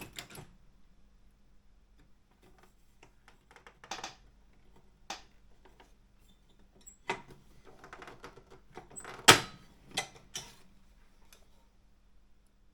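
Wide-carriage Optima M14 typewriter handled between bursts of typing: scattered single clicks and knocks from its mechanism, with one sharp, loud knock about nine seconds in.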